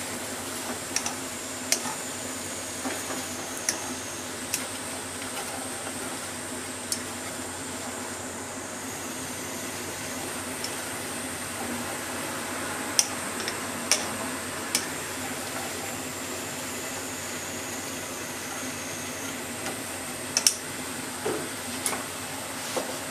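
Bacon and eggplant slices sizzling steadily in a pot as they are stir-fried. Wooden cooking chopsticks tap and click against the pot now and then, with a cluster of taps in the middle and several more near the end.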